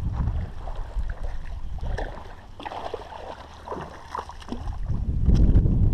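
A hooked bass splashing and thrashing at the surface close to the bank as it is reeled in, with wind rumbling on the microphone, heaviest near the end.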